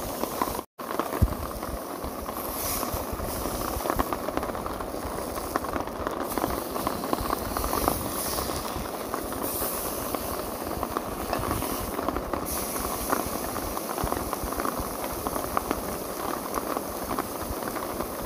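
Steak sizzling and spitting in a hot frying pan, a steady crackling hiss. The sound drops out for an instant about a second in.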